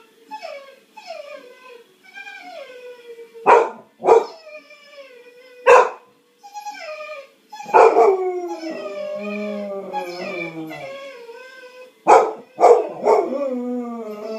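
Cocker spaniel whining and howling in short, falling, pitched cries, broken by six sharp barks, two of them in quick pairs. The howl stretches into a long drawn-out cry about halfway through.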